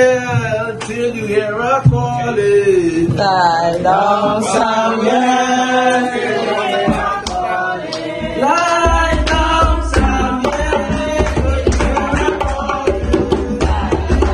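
Worship song: a voice singing with drum accompaniment. A deep bass comes in about nine seconds in.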